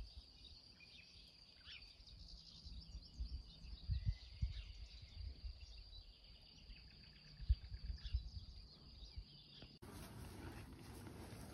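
Outdoor meadow ambience: many short bird chirps over a steady high insect buzz, with low gusts of wind on the microphone. About ten seconds in it cuts to a steady windy hiss.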